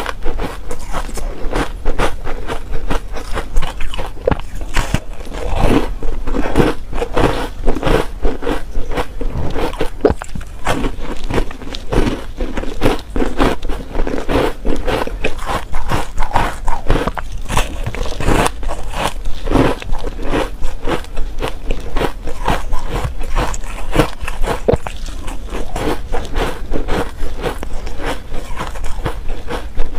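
Ice coated in matcha powder being bitten and chewed, a steady stream of crisp crunches.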